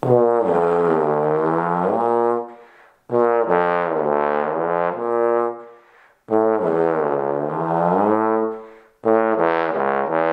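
Bass trombone played in four long phrases, in a lip-bending exercise played first without the valves and then with a valve. In the first and third phrases the pitch sags down and comes back up.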